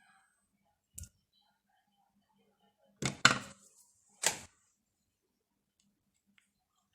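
Small hard parts and tools handled on a workbench: a light click about a second in, a short rattling clatter around three seconds, and a single sharp knock just after four seconds, the loudest sounds here.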